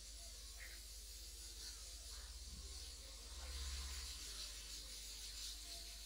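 Faint background noise: a steady hiss over a low hum, with a brief low rumble swelling up about three and a half seconds in.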